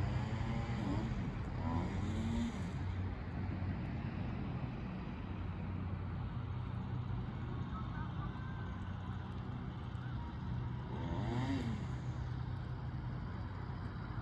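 Steady low engine hum, with a few brief wavering pitched sounds about a second in and again near eleven seconds.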